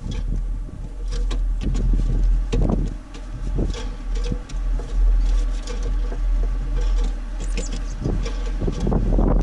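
Wind buffeting the microphone: a heavy, gusting low rumble.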